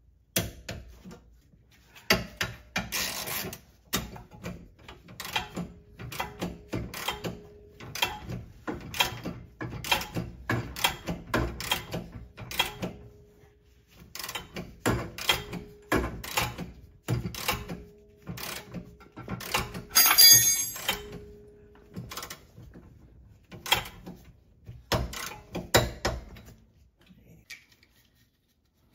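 Hand tools working on a car's rear suspension: irregular runs of clicks and metal-on-metal knocks, with a louder clatter about twenty seconds in.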